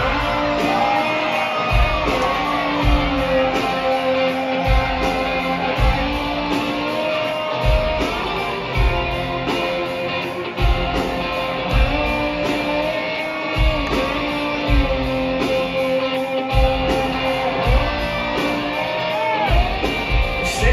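Live country-rock band playing a slow song's instrumental intro: electric guitars, bass and drums, with the kick drum on a slow steady beat.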